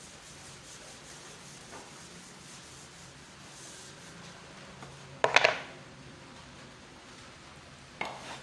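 Chalkboard being wiped with a duster, a soft rubbing, with a short, louder clatter of knocks about five seconds in and another single knock near the end.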